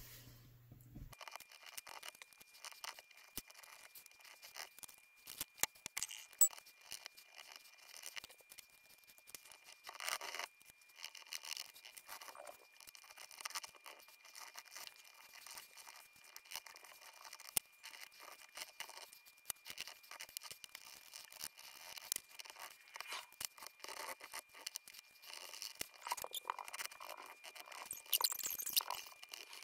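Faint, quick scratching and scraping of small tools over a CD coated in dried black acrylic paint, as the paint is scratched away to bare the shiny disc, with a denser stretch of scraping near the end.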